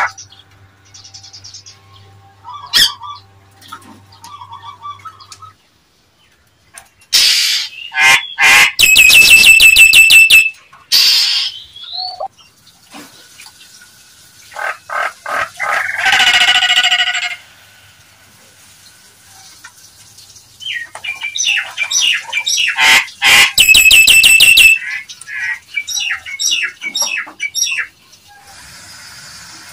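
Nias hill myna calling: loud pitched whistles and harsh, rasping calls in bouts, the strongest about seven to eleven seconds in, around sixteen seconds, and from about twenty-one to twenty-five seconds, with quieter chatter between.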